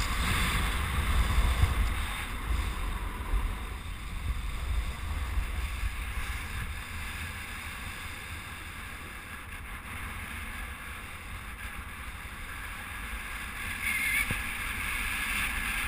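Wind rushing over a body-worn camera's microphone during a run down a groomed ski slope, with a steady hiss of edges sliding over packed snow. It is louder at first, eases off in the middle, and picks up again near the end.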